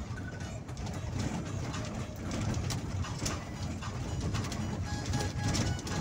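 Vehicle driving over a rough dirt road, heard from inside the cab: a steady low rumble with irregular knocks and rattles as it rides the bumps.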